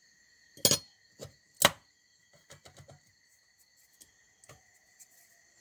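Metal motorcycle clutch parts clinking and knocking as they are handled and fitted: three sharp knocks in the first two seconds, then a run of lighter clicks.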